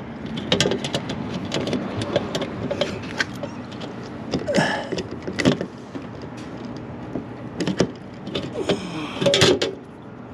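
Hand pop-rivet gun being worked to set a 1/8-inch pop rivet, with a run of irregular sharp metal clicks and clinks.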